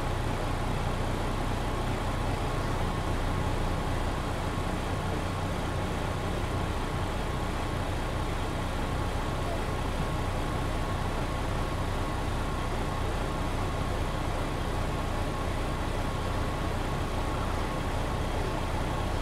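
MAN NG 313 articulated city bus, its diesel engine running steadily, heard from inside the passenger cabin.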